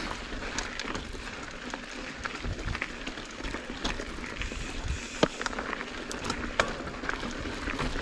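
Mountain bike rolling along a dirt singletrack: steady crackling tyre noise on the dirt, with frequent clicks and rattles from the bike and two sharper knocks about five and six and a half seconds in.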